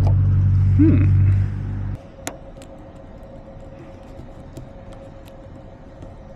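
A vehicle engine idling, then switched off about two seconds in, leaving a sharp click and a few faint ticks.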